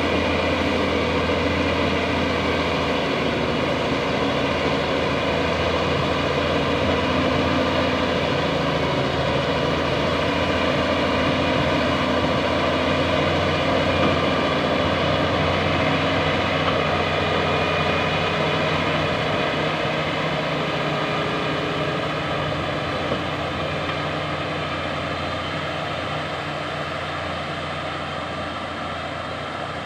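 Bulldozer's diesel engine running steadily under work, growing a little quieter over the last several seconds.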